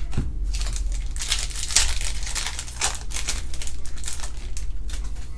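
Crinkling and rustling of a foil trading-card pack wrapper being handled and torn open, in a run of uneven crackles.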